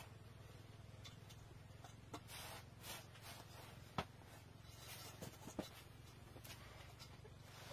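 Faint rustling and scraping of hands working floured dough in a metal basin over a low steady hum, with a sharp tap about four seconds in.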